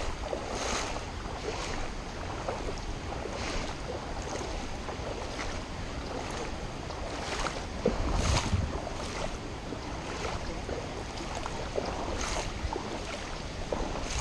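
Legs wading through shallow creek water, a slosh every second or so over a steady rush of water noise, with a louder slosh about eight seconds in.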